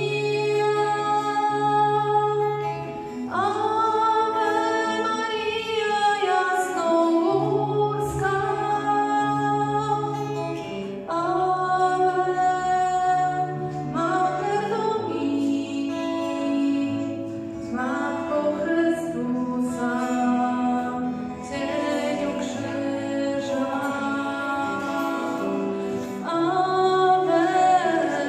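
A woman singing a slow Christian worship song into a microphone, with long held notes, accompanied by an acoustic guitar.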